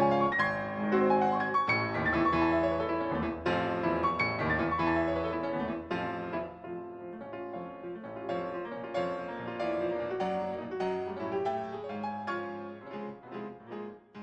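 Solo piano music, a steady run of notes that grows gradually quieter over the second half.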